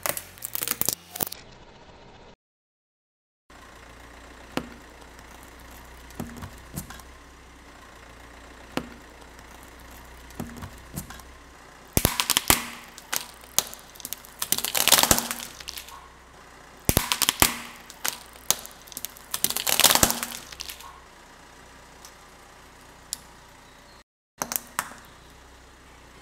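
Plastic abacus toy cracking and snapping under a slowly rolling car tyre, in several dense bursts of crunching with scattered single clicks between them. A low steady hum of the car's engine idling lies underneath.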